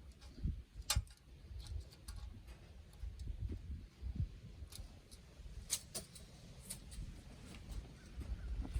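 Scattered sharp clicks and light knocks, about a dozen at uneven intervals, over a low uneven rumble. The two loudest come about a second in and near six seconds.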